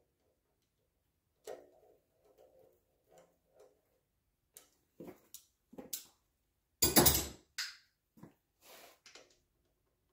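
Metal hand tools being handled while bolting on an engine's oil filter adapter: a ringing click, a few light ticks, then scattered clinks and one loud metallic clatter about seven seconds in.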